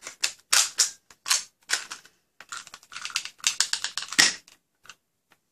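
Plastic clicks and clacks of a toy shell-ejecting Glock-replica foam-bullet pistol being worked by hand, with its slide racked after a failure to fire. The failure comes from a crooked shell casing that the round did not lift into place. The clicks come singly, then in a quick run a little past halfway.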